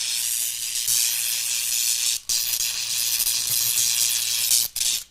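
Electrical crackle sound effect: a continuous high, hissing crackle of sparking electricity over a faint low hum. It cuts out briefly about two seconds in and again near the end.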